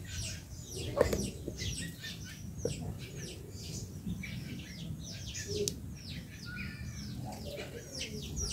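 Small birds chirping: a rapid string of short, high, downward-slurred chirps, several a second, over a low steady rumble.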